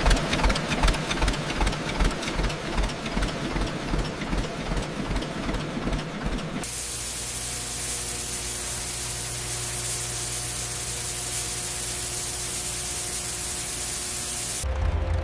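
1934 John Deere Model A's two-cylinder engine running with an even, slow pulse, about two or three beats a second. About halfway through it changes abruptly to a steady hiss with a low hum underneath.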